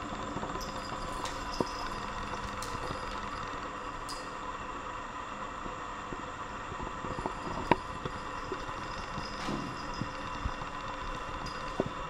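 Steady mechanical hum with a few short, light clicks and taps scattered through it.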